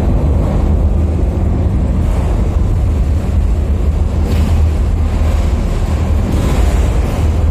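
A loud, steady deep rumble with a rushing hiss over it, swelling briefly about four seconds in and again near the end.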